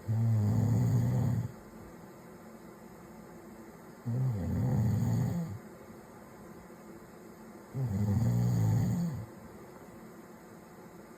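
A sleeping man snoring: three loud, low-pitched snores on the in-breath, each about a second and a half long, coming roughly every four seconds with quiet breathing between.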